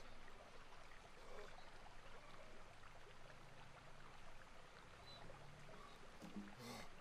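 Near silence: a faint, even hiss, with one short louder rush of noise near the end.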